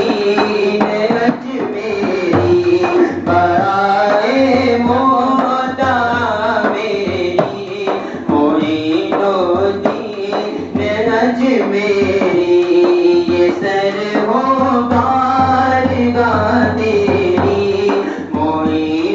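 A man sings a devotional Urdu manqabat in long, melismatic phrases into a microphone, with a hand-held frame drum beating along.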